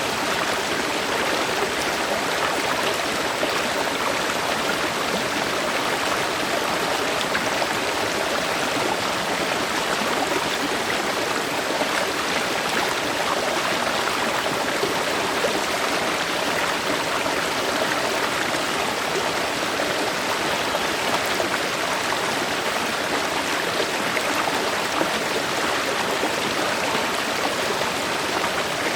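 River or stream water flowing steadily over rocks, a constant rushing with fine splashing and no change in level.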